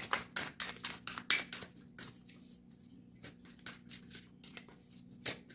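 A deck of cards being shuffled by hand: quick, irregular card snaps and slaps, thickest in the first two seconds and sparser after. A faint steady hum sits underneath.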